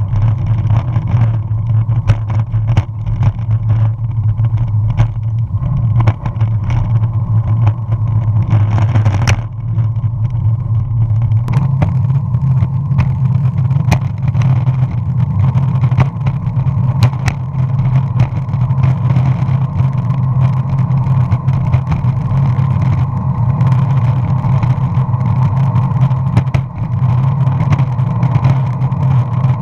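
Kahuna Creations 48-inch longboard's wheels rolling on asphalt, a steady low rumble carried through the deck, with scattered clicks and knocks from bumps and grit on the path. The rumble weakens about nine seconds in and comes back strongly a couple of seconds later.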